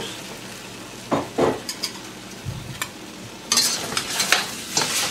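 Stir-frying in a wok: a spatula scrapes and tosses beef and vegetables over a steady low sizzle, just after a cornstarch slurry has gone in to thicken the sauce. The scraping comes in short bursts about a second in and again through the second half.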